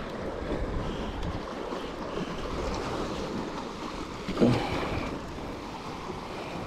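Sea waves washing against a rocky shore, with wind buffeting the microphone. A short human vocal sound comes about four and a half seconds in.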